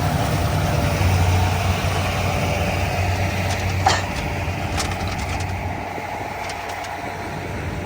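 Farm machine engine running steadily at low revs, with one sharp click about four seconds in.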